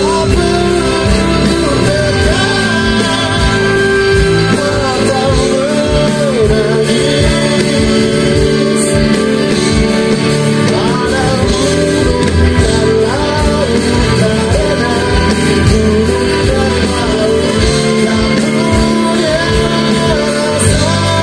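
Live music: a man singing over an electric guitar and band, played loud through stage speakers.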